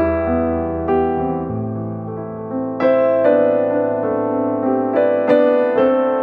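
Background music: a piano, electric-piano in timbre, playing slow chords with a new note or chord struck about every second.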